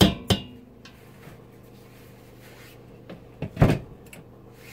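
Two sharp knocks with a brief metallic ring as a stick blender is knocked against a stainless steel pot of soap batter and lifted out, then a second, louder cluster of knocks about three and a half seconds in, over a faint steady hum.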